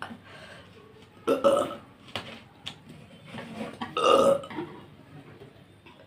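A woman burping loudly twice, once about a second and a half in and again, longer, about four seconds in.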